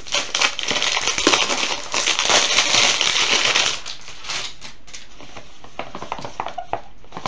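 Plastic film being torn and crumpled off a perfume box: dense crinkling, loudest in the first three to four seconds, then lighter scattered crackles.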